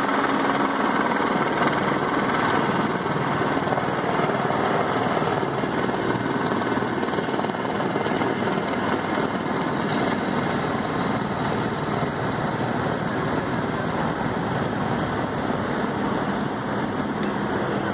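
Police helicopter circling overhead, its rotor and engine noise steady throughout.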